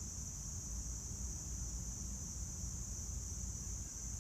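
Steady high-pitched insect chorus of crickets over a low rumble.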